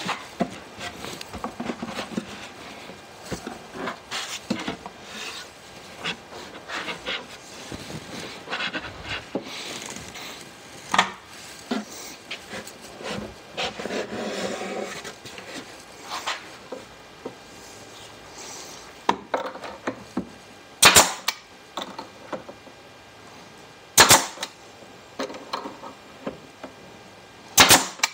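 Wooden drawer parts knocking and rubbing as they are handled, then a pneumatic nail gun firing three sharp shots about three seconds apart, fastening the pine drawer box.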